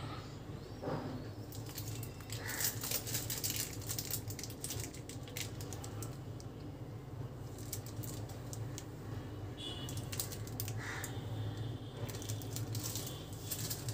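Maggi noodles cooking in a pan on the stove, giving off small irregular crackles and ticks over a steady low hum.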